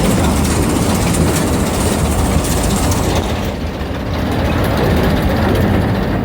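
Silage baling machine running steadily while packing cotton, with a constant low engine hum. A high hiss from the machine fades out about three and a half seconds in.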